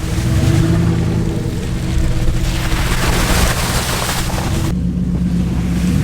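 Dodge Ram 2500 pickup's engine revving up and then pulling steadily as the truck drives through a water-filled mud hole, with water splashing. The splashing is loudest a few seconds in and cuts off suddenly shortly before the end.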